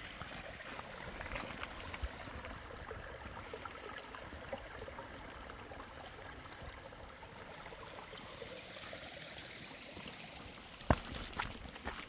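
Steady rush of running water, like a trickling trail-side stream, with footsteps on a rocky trail; a sharp knock about eleven seconds in, then a few more steps.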